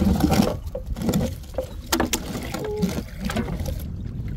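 Shallow lake water splashing and lapping around a wader handling a wire crab trap, with scattered short clicks and knocks over a steady low rumble of wind on the microphone.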